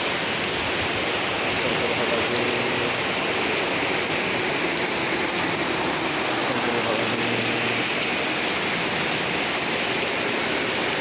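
Torrential rain pouring down in a strong windstorm, a steady, dense rushing hiss.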